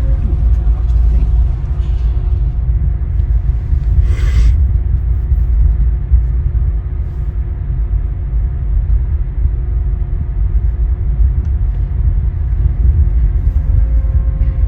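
Car ferry's side thrusters and engines working during docking: a loud, steady low rumble with a faint steady hum over it. A short hiss cuts in about four seconds in.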